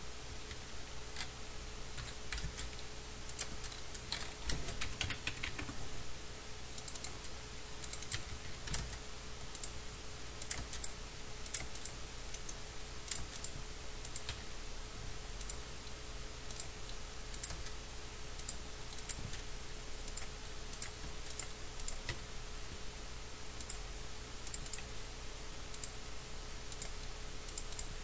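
Computer keyboard keys and mouse buttons clicking irregularly, a few clicks at a time with short pauses, over a faint steady hum.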